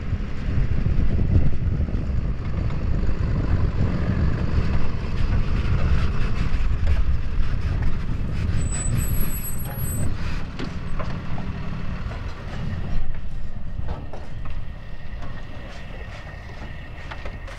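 Heavy truck running: a steady low engine and road rumble that eases off near the end. A brief thin high-pitched tone sounds about nine seconds in.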